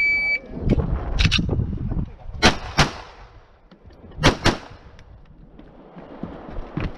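Shot timer start beep, a short steady tone, followed by pistol shots from a 9 mm Glock 34 fired in three quick pairs, each pair a little over a second apart.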